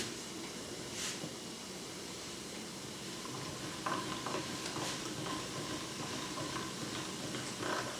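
Hand-cranked pasta machine turning as a thin sheet of pasta dough is rolled through it, with faint ticks and brief squeaks from about halfway in, over a steady background hiss.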